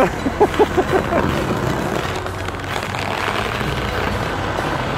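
Car engine running steadily with a low rumble under a haze of noise. In the first second, a person gives a quick laugh of about five short pulses.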